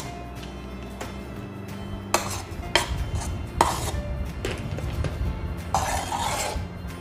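Spoon clinking and scraping against a cup as thick milk foam is scooped onto an iced cappuccino: a few sharp clinks, then a short scrape near the end, over steady background music.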